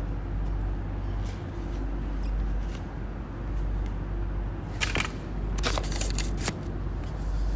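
Brief scraping and clicking of equipment being handled, clustered about five to six and a half seconds in, over a steady low hum.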